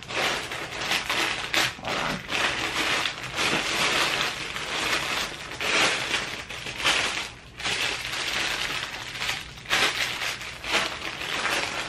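Clear plastic bags crinkling and rustling as they are handled and rummaged through, uneven, with a few short pauses.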